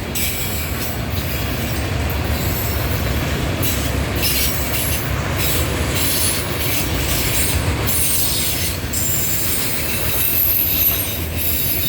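Norfolk Southern freight train rolling past: a steady low rumble of wheels on rail with high-pitched wheel squeal coming and going.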